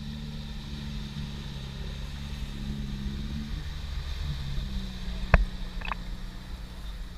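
Off-road jeep's engine running steadily at low revs as it drives through shallow floodwater, with water churning and splashing around its wheels. A single sharp knock about five seconds in.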